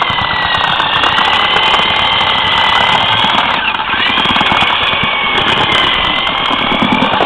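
Handheld electric paddle mixer running steadily, its motor whining as the paddle churns cement-and-sand mortar in a steel wheelbarrow. The motor's pitch sags briefly about halfway through and then picks back up as the load on the paddle changes.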